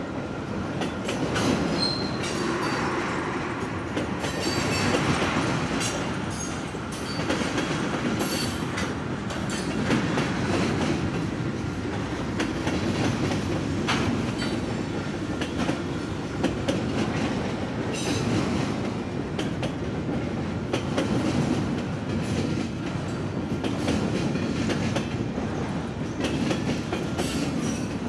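A freight train of autorack cars, covered hoppers and tank cars rolling steadily past, a continuous rumble with wheels clicking over the rail joints.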